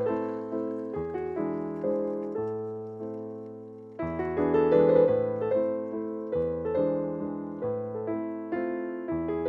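Background piano music: a gentle melody of struck notes, about two a second. It fades a little, then comes back louder with a fuller chord about four seconds in.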